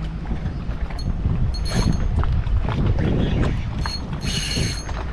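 Fishing reel being cranked while a hooked fish is played in, with two short high buzzes from the reel about one and a half seconds and four seconds in. Wind rumbles on the microphone throughout.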